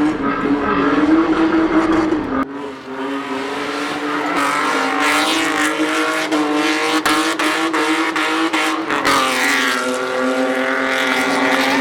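BMW E30 drift car's engine held at high, nearly steady revs while its tyres squeal through a drift. The sound changes abruptly about two and a half seconds in, and the tyre noise grows louder in the second half.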